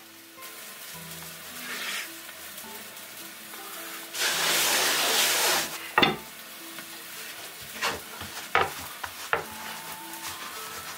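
A hot pan sizzles in a loud burst lasting about a second and a half near the middle. After it, a wooden rolling pin knocks a few times and rolls on a floured wooden board, over soft background music.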